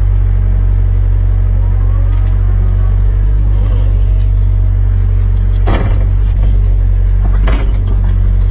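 Sunward 90UF excavator's diesel engine running steadily under work, with a faint gliding hydraulic whine a couple of seconds in and two sharp knocks from the machine, at about six seconds and about seven and a half seconds.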